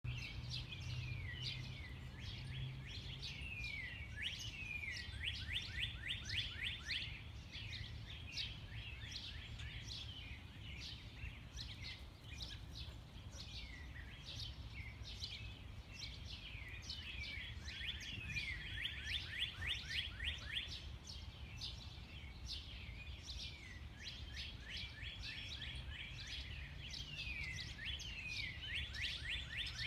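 Many songbirds chirping and calling together in a dawn chorus, with a fast trill that comes round about every twelve seconds, over a steady low hum.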